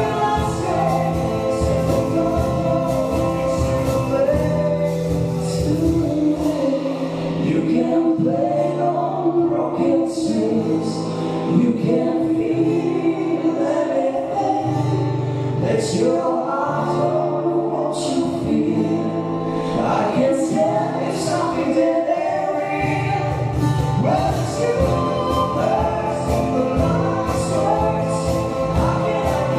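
Live acoustic band playing a song with singing: double bass, acoustic guitar, drums and keyboard, with steady low bass notes and cymbal strokes under the vocals.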